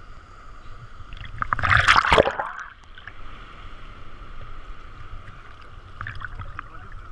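Seawater sloshing and lapping against a camera held at the water's surface. About a second and a half in, a small wave surges past in a loud splash lasting about a second.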